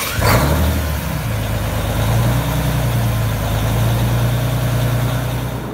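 The 6.6-litre Cummins JT-600 turbocharged diesel of the 1952 #28 Cummins Diesel Special running with a healthy, throaty rumble. It rises briefly just after the start, then settles into a steady idle, freshly brought back to life after years on display.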